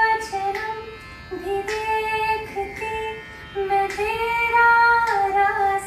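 Unaccompanied singing: one high voice holds long, slightly wavering notes without clear words.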